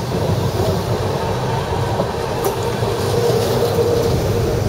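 An articulated tram rolling past close by: a steady rumble of its wheels on the rails, with a couple of sharp clicks about two seconds in.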